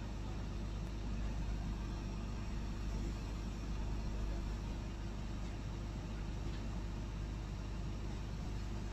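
Steady low engine rumble with a constant hum, unchanging in pitch and level.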